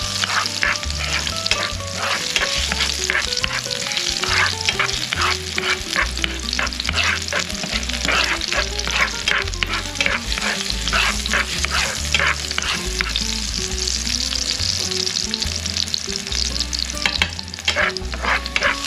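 Chopped garlic sizzling as it sautés in hot oil in a frying pan, stirred with a spatula that scrapes and taps against the pan over and over.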